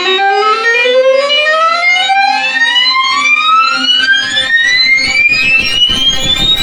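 Synthesized electronic tone with many overtones, sliding steadily upward in pitch like a slow siren, over a steady lower drone; crackly noise builds up toward the end.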